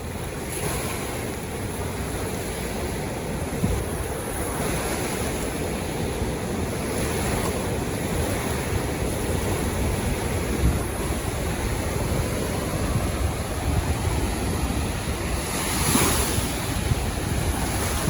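Steady wash of sea surf breaking on a beach, with wind buffeting the phone's microphone as a low rumble; the surf swells a little a few times.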